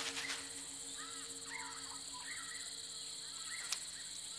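Outdoor bush ambience: a steady high insect trill, with small birds giving short, arching chirps throughout and one sharp click near the end.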